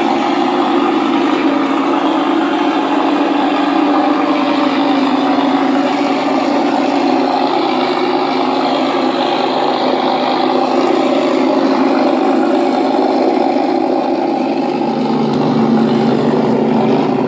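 Sense Hobby ESS sound module playing a simulated P-47 warbird engine sound through speakers mounted in a foam model airplane, running steadily. The sound deepens about fifteen seconds in.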